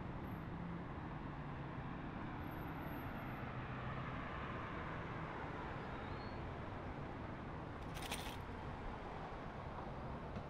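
Steady outdoor street ambience with distant traffic noise. A brief, sharp noise cuts through about eight seconds in.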